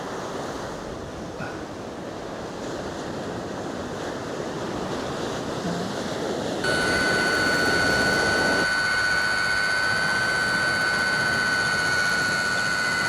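Surf and wind on the microphone. About halfway through, the steady high whine of a drone's motors and propellers starts abruptly and holds.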